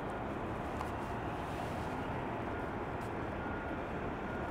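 Steady hum of distant road traffic, an even wash of noise with no single vehicle standing out.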